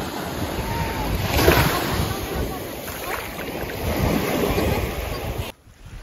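Small waves washing up onto a sandy beach, with wind buffeting the microphone. The sound cuts off suddenly about five and a half seconds in.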